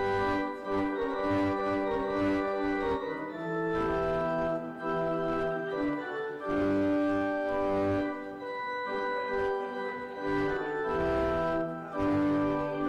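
Organ music: slow, sustained chords with notes held a second or two at a time and changing steadily.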